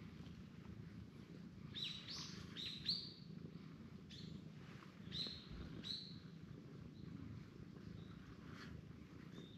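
Small bird chirping: short high rising chirps, a quick run of four or five about two seconds in, then single chirps around four, five and six seconds in, growing fainter after that, over a steady low hum.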